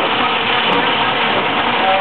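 Sawmill machinery running with a steady, loud mechanical din.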